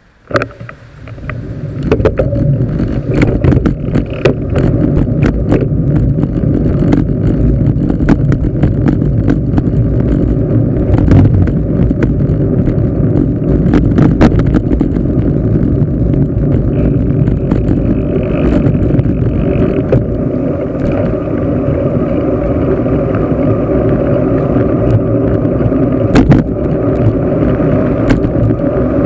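Wind buffeting a handlebar-mounted camera's microphone, together with road rumble and rattle from a moving bicycle. The noise rises sharply about a second in as the bike moves off, then stays steady and loud with scattered sharp clicks and knocks.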